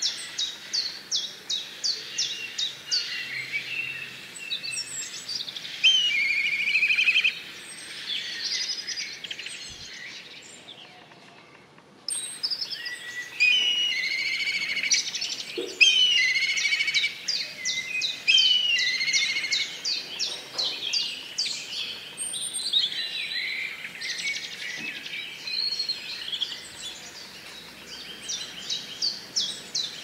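Black kite calling: shrill, whinnying calls made of high whistled notes and rapid trills, repeated again and again. The calls fade lower around ten seconds in, then break in again abruptly about two seconds later.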